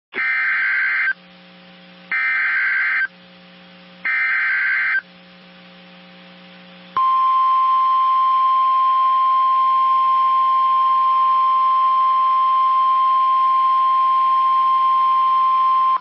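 NOAA Weather Radio Emergency Alert System alert: three one-second bursts of warbling SAME header data tones, a second apart, then a steady single-pitch warning alarm tone (1050 Hz) held for about nine seconds. The sequence signals that a warning, here a severe thunderstorm warning, is about to be broadcast.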